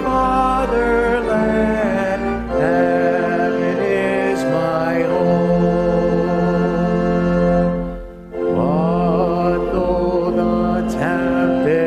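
Church organ playing a hymn, with voices singing along. The music breaks off briefly about eight seconds in, between phrases, then resumes.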